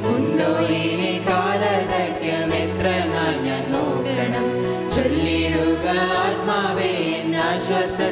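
Christian hymn music: a melodic vocal line over sustained bass notes that change every two or three seconds.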